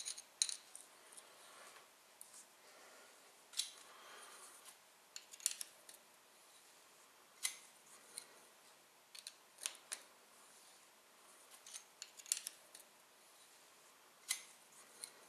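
Light metallic clicks and ticks, a second or two apart at irregular intervals, from a small screw jack being turned by hand under a dividing head's heavy four-jaw chuck to raise it.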